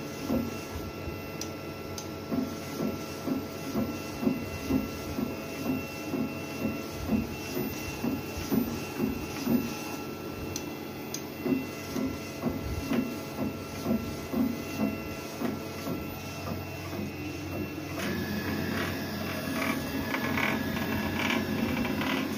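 A3 UV flatbed printer running a print job: the print-head carriage shuttles back and forth with a steady machine hum, a regular pulse sounding about every three-quarters of a second. For the last few seconds a louder, busier whirring takes over.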